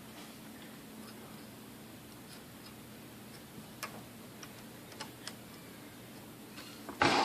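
A few faint, sharp clicks and taps of the vintage Sunbeam Mixmaster's parts being handled, then a louder clatter near the end.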